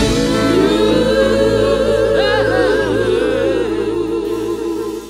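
Background music with singing, dropping off sharply at the very end.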